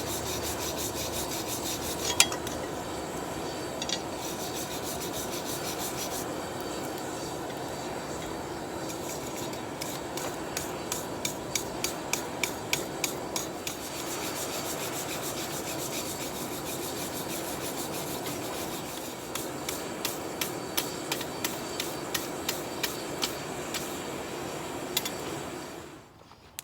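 Wire brush scrubbing surface rust off a steel blade. A steady scratching runs throughout, with stretches of quick ticking strokes, and it stops abruptly near the end.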